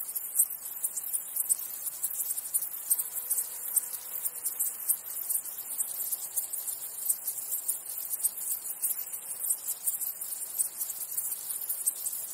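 A dense chorus of chirring insects: very high-pitched, rapid pulsing that goes on without a break.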